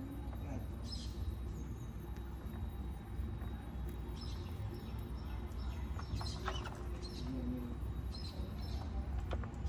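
Caged cockatiels and budgies chirping, short high chirps every second or two, over a steady low rumble.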